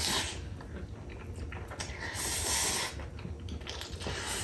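A person eating with a full mouth breathes out hard through the nose twice, a short snort at the start and a longer one about two seconds in.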